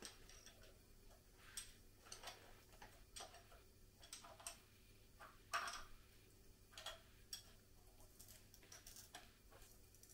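Faint, irregular metallic clicks and taps of small engine parts being handled and fitted by hand on a Volvo D67C diesel's cylinder head, with one sharper knock about five and a half seconds in.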